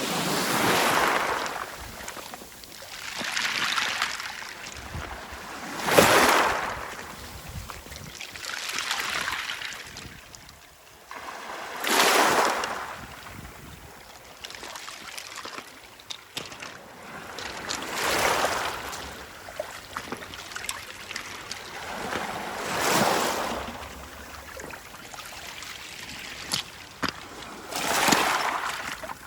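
Small sea waves washing in over a beach of rounded stones, one surge every three to four seconds; a few of them arrive with a sudden splash.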